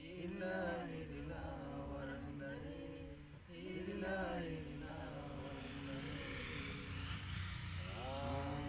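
A voice chanting a prayer in long, drawn-out phrases with short breaks between them.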